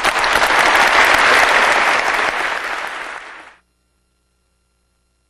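Audience applauding, swelling in the first second, then tapering off until it cuts out about three and a half seconds in.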